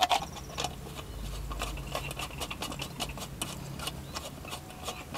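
Light, irregular metallic clicks and scrapes as a hand screwdriver turns a small bolt fitted through the wall of a thin tin paint can, over a faint low hum.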